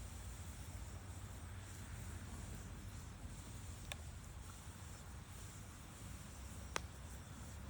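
Wood campfire burning softly over a low steady rumble, with two sharp pops from the burning wood, about four seconds in and near the end, the second louder.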